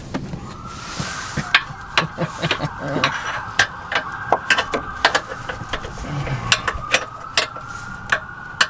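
Metal hand tools clicking and clinking irregularly, a few sharp clicks a second, as a wrench and ratchet work a rear suspension bolt, over a faint steady whine.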